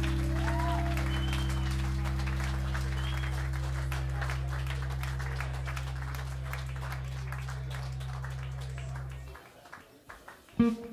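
A live band's final low chord held and slowly fading, then cut off about nine seconds in, under audience applause. Just before the end a guitar note starts the next piece.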